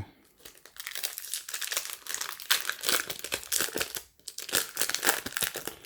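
Pokémon TCG booster pack's foil wrapper being handled and torn open, a dense irregular crinkling and crackling, with a brief pause about four seconds in before the crinkling resumes.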